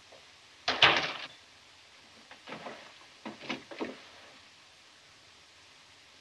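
Handling sounds as a box of matches is passed over: a sharp scrape about a second in, then a few softer scuffs and knocks, over the faint hiss of an old film soundtrack.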